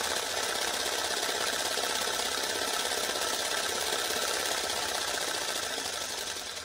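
Go Go Bird RC ornithopter's battery-powered motor driving its plastic-film wings, flapping rapidly; a steady, rhythmic mechanical whirr and flutter that fades out near the end.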